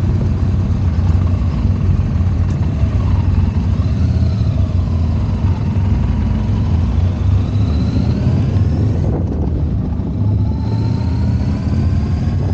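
Yamaha XV950R's air-cooled V-twin engine accelerating, its pitch rising several times as it shifts up through the gears.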